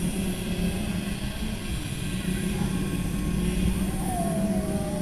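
Steady buzzing hum of a quadcopter camera drone's propellers in flight, with a faint high whine over it. A faint, short falling tone comes in about four seconds in.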